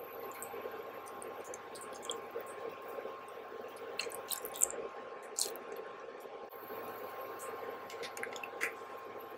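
Abalone sauce and cooking oil sizzling in a hot grill pan: a steady hiss with scattered sharp crackles and pops, most of them about four to five seconds in and again near the end.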